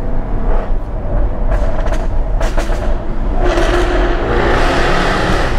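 Jaguar F-Type R's supercharged V8 heard from inside the cabin on the move, with a few short exhaust crackles in the first half. Past the middle the exhaust noise swells into a louder rush, echoing off the walls of an underpass.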